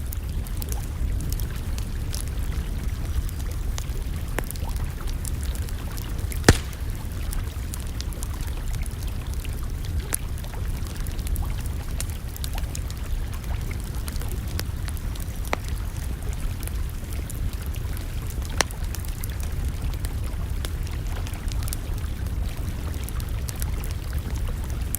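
Campfire crackling, with scattered sharp pops over a steady low rumble; the loudest pop comes about six and a half seconds in.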